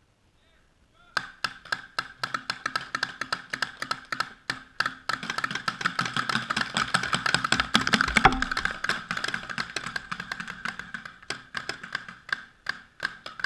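A fast, irregular run of sharp clicks and knocks, several a second, over a steady tone. It starts about a second in, builds to its loudest a little past the middle, then thins out and stops near the end.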